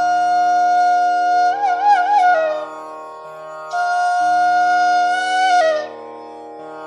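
Instrumental background music in an Indian classical style: a long-held melody line that wavers in ornamented turns, over a steady drone of lower held notes.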